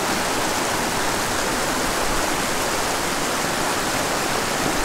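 Small mountain creek flowing steadily over rocks: an even, unbroken rush of water.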